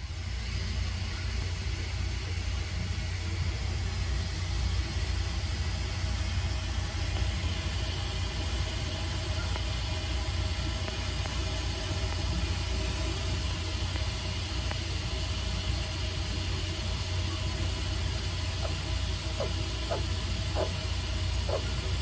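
Steady low hum and hiss of the enclosure's background. In the last few seconds a handful of faint, short croaks begin, spaced about half a second to a second apart: a White's tree frog starting to call.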